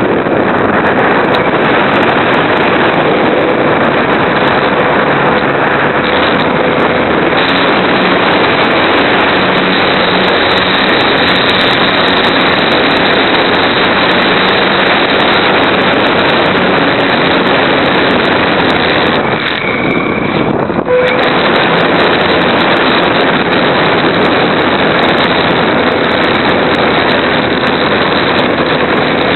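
Radio-controlled Super Cub model airplane's motor and propeller running steadily, with air rushing over the onboard camera's microphone. The sound drops briefly about two-thirds through.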